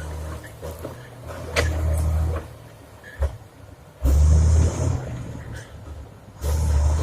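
Komatsu D70LE bulldozer's diesel engine running, swelling louder under load three times: about a second and a half in, around four seconds, and again near the end. A short knock comes in between.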